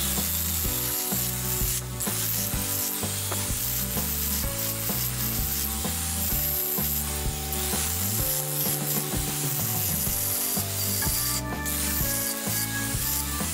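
Electric angle grinder fitted with a sanding disc, running and sanding along a curved hardwood handrail: a continuous scratchy rub of abrasive on wood.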